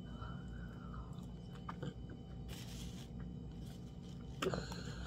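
Close mouth sounds of eating fufu and meat in soup by hand: wet chewing and finger-licking, with a few small clicks and a sharper smack about four and a half seconds in, over a steady low hum.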